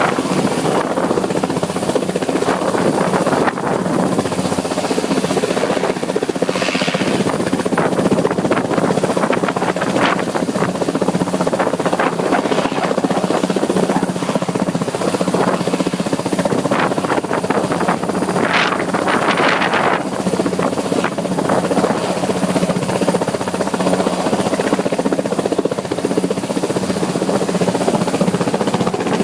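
Coast Guard helicopter running close by: a loud, steady rush of turbine and rotor with a constant low hum.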